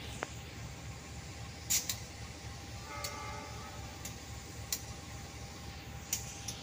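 Steady low outdoor background rumble with a faint steady hum and about seven scattered sharp ticks. A brief pitched sound comes about three seconds in.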